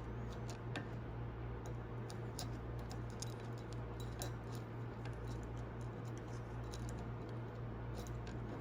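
Faint, irregular light metallic clicks and ticks as small valve keepers are worked into place on a valve stem with a magnetic screwdriver, over a steady low hum.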